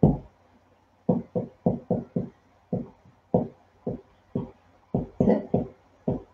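Background music: a run of single plucked guitar notes, about three a second, each quickly dying away.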